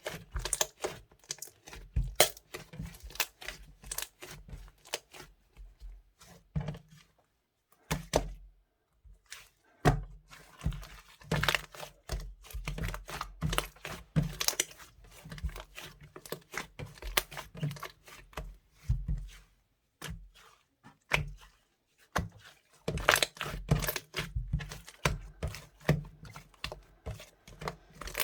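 Purple glitter slime mixed with clay, squished and pressed by hand: a stream of irregular sticky pops, clicks and crackles with soft thumps. It pauses briefly twice.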